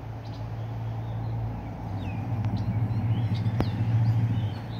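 A low, steady hum with a fast flutter, louder for a couple of seconds near the middle, with a sharp click partway through. Small birds chirp briefly above it.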